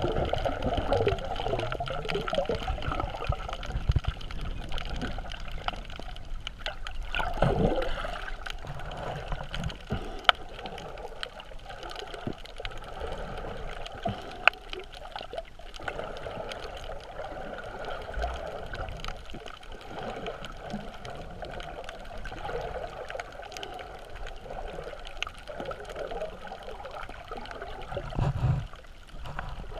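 Water heard underwater through a GoPro's waterproof housing: a steady muffled wash with gurgling and a few low surges. A few sharp single clicks stand out, the loudest about ten and fourteen seconds in.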